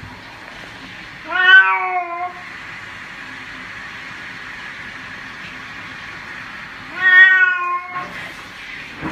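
A wet black-and-white cat meowing during its bath: two drawn-out meows about five and a half seconds apart, over a steady background hiss.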